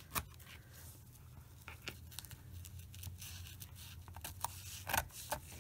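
Scissors cutting through quilting cotton and fabric strips: a few separate, irregularly spaced snips.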